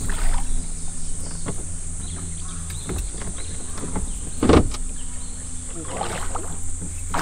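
Steady electric hum of a bass boat's trolling motor, with a few short knocks, the loudest about four and a half seconds in.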